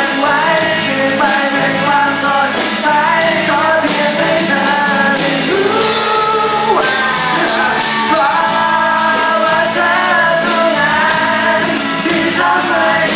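Live acoustic rock band performance: a song with a sung vocal line over guitar accompaniment, heard through a concert hall's sound system.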